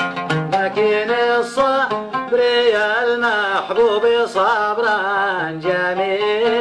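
Instrumental passage of a Yemeni song: a plucked string instrument picking quick notes, joined about two seconds in by a melody line that slides and wavers between held notes.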